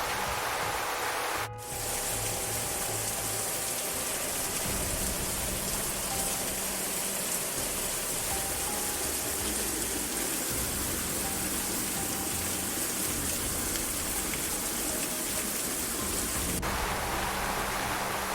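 Steady rushing water noise with background music underneath. The noise drops out briefly about a second and a half in and changes character near the end.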